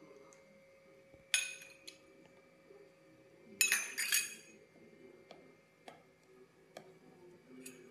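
Steel spoon clinking against an enamel pot: two loud, ringing clinks, about a second and a half in and again near four seconds, then a few light taps.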